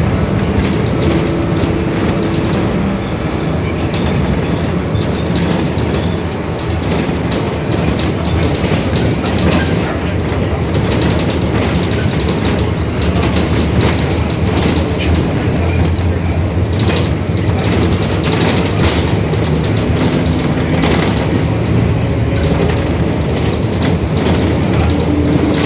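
Mercedes-Benz OF-1721 Bluetec 5 city bus running under way, its engine and a droning differential making low tones that shift in pitch. Short rattles and knocks run through it all.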